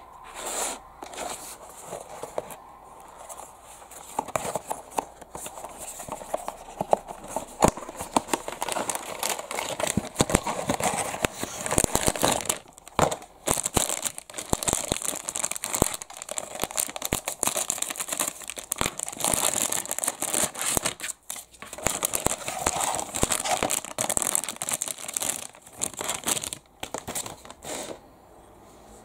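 Clear plastic bag crinkling and rustling as a small diecast airplane model is handled and unwrapped from it, with many sharp clicks and taps from the packaging and a cardboard box being opened. The crinkling goes quiet near the end.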